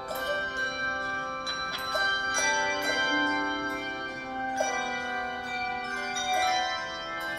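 Handbell choir playing a piece: bells struck in chords and single notes every second or so, each tone ringing on and overlapping the next.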